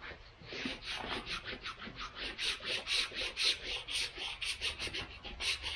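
Squeegee rubbed quickly back and forth over vinyl, pressing it down onto contact cement on a dash pad. It makes a fast, scratchy rubbing of about five strokes a second, starting about half a second in.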